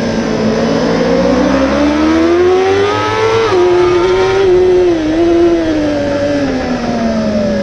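Kawasaki superbike's inline-four engine at racing speed, heard from the onboard camera: the revs climb for about three seconds, drop sharply at an upshift, hold with a brief dip, then fall steadily near the end. A wash of wind and road noise runs under it.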